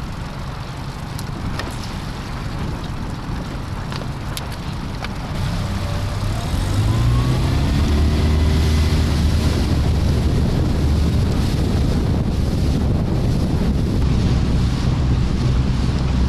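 Four-stroke outboard motor on an inflatable boat running under way, picking up speed about seven seconds in, with wind buffeting the microphone.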